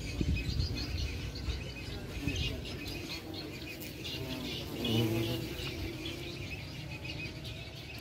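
Small birds chirping over and over, with a low rumble underneath that is strongest in the first few seconds.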